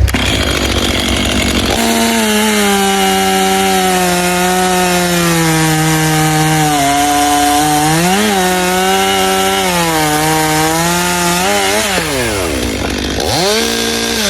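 Gas chainsaw with a stock, unmodified muffler cutting through wood at full throttle, its engine note sagging slowly under the load of the cut. Near the end the engine drops off and is revved briefly again.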